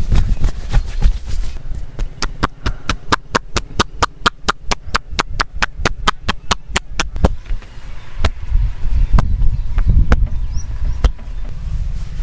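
A massager's hands striking the client in rhythmic percussive massage strokes. A fast, even run of sharp slaps or chops at about five a second starts about two seconds in and stops near the seven-second mark. Single strikes follow, about a second apart.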